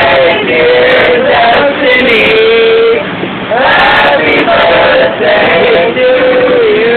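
Group of male voices chanting a birthday song together, holding long notes that dip and rise in pitch.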